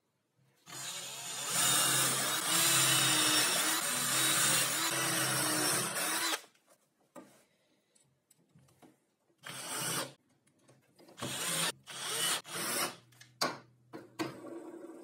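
Cordless drill running for about five seconds as it bores into a wooden frame corner, then several short bursts of the drill at a swivel caster's metal mounting plate.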